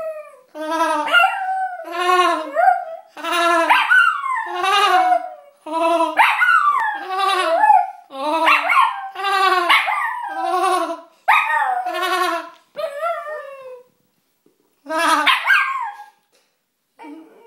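Small shaggy terrier-type dog howling over and over in long, wavering yowls, about one a second with a couple of short breaks, set off by a person's silly laughing noise.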